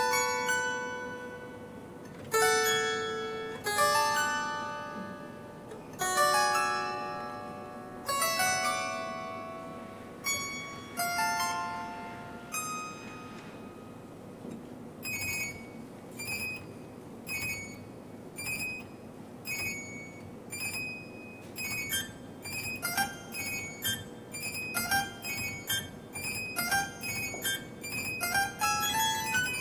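Solo harpsichord playing. For the first half it strikes chords about every two seconds and lets each ring and fade; from about halfway it plays short, detached notes that repeat more and more quickly.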